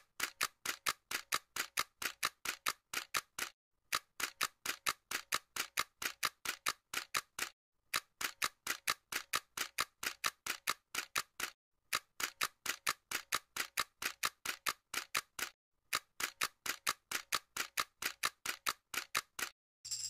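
A dry, sharp ticking sound effect, about four clicks a second, in five runs of roughly four seconds with short breaks of dead silence between them. It is laid over an edited sequence in place of the live sound.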